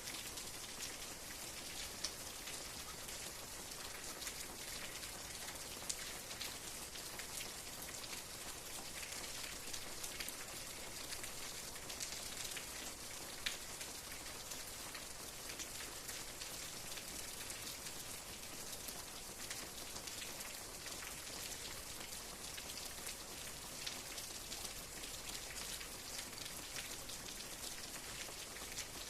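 Steady rain falling, an even hiss of drops with scattered close drops ticking sharply, a few of them louder, about two, six and thirteen seconds in.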